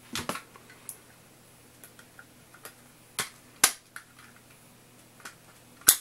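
A handful of sharp plastic clicks and snaps, the loudest just before the end, as a wireless mouse's AA battery is swapped for a Duracell.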